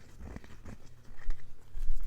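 Irregular light taps and clicks close to a microphone, an ASMR trigger, with two heavier low thuds about a second in and near the end.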